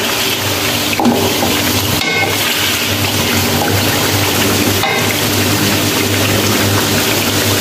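Chicken pieces frying in hot oil in an aluminium karahi: a steady sizzle, with a wooden spatula stirring the pieces and knocking against the pan a few times.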